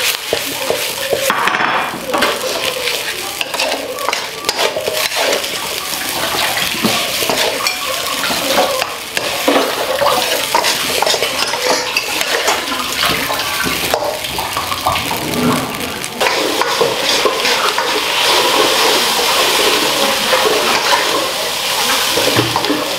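Metal spatula scraping and clanking against a wok in quick irregular strokes, stir-frying rice over the hiss of frying. A steadier hiss comes up about two-thirds of the way through.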